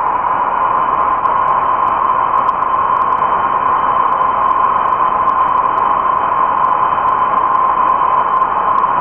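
Steady loud rush of compressed air, with a faint thin whistle held over it. It is shut off about nine seconds in and dies away within about a second.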